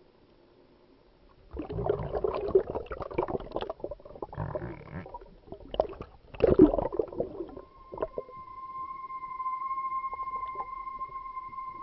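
Water sloshing and bubbling around an underwater camera just below the surface, in irregular bursts for about six seconds. About eight seconds in, a steady high tone begins: the opening note of background music.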